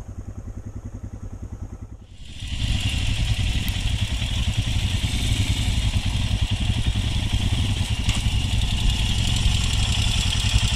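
Motorcycle engine running with a steady low thump, heard through a helmet-mounted camera. About two seconds in the sound cuts to a louder engine with a hiss of wind over it, running on steadily.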